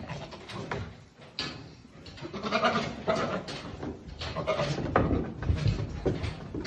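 Castrated male goat bleating, with two or three pitched calls in the middle of the stretch.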